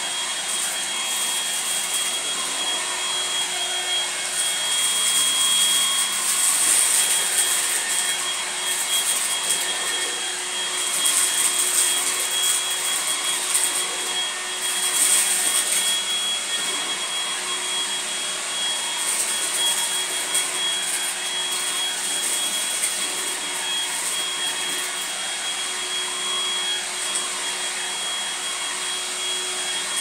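Goblin cordless stick vacuum cleaner running on high power, a steady whining motor with a fixed high tone over a rushing hiss. Its level swells and dips through the first half, then holds steadier.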